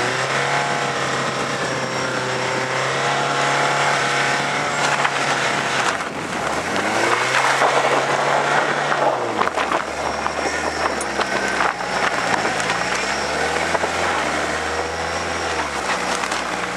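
Ford Escort van's diesel engine under hard throttle while driving on snow, its pitch held steady for about six seconds, then dropping and climbing again several times as the revs change, over a steady rush of tyre and road noise.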